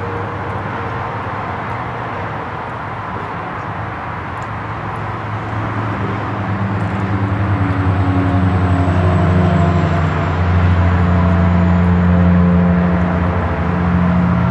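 A motor engine's steady low hum, growing louder from about halfway through and staying loud to the end, with a faint high whine over it in the middle.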